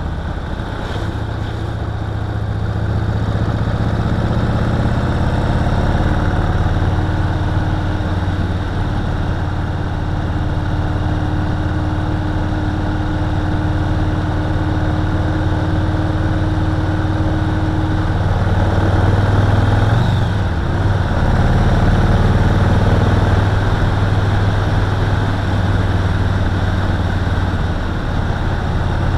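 Yamaha Roadliner's big air-cooled V-twin running steadily under way, with a constant rush of wind noise. Its pitch dips briefly and comes back up about two-thirds of the way in, as the throttle is eased and reopened.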